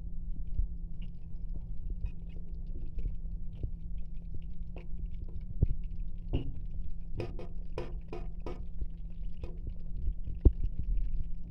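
Scattered clicks and knocks of kitchen utensils being handled over a steady low hum, with a quick run of about five knocks between seven and eight and a half seconds in and a sharper single knock near the end.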